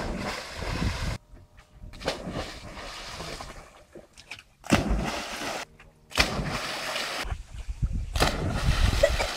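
Water splashing and sloshing as a Labrador retriever plunges in and swims, in several separate noisy bursts, some starting abruptly.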